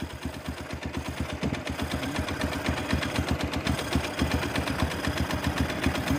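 Honda XR200's air-cooled single-cylinder four-stroke engine idling steadily, with a rapid, even beat of firing pulses.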